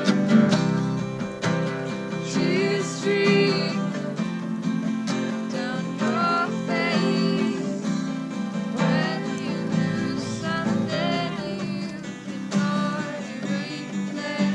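Acoustic guitar strummed steadily, with a voice singing phrases over it.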